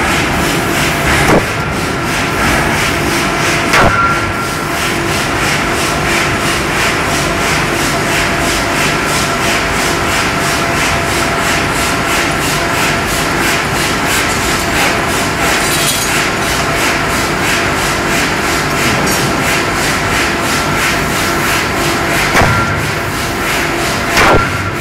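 Loud, steady roar of a glassworks furnace with a steady hum in it, broken by a few sharp knocks: about a second in, about four seconds in, and twice near the end.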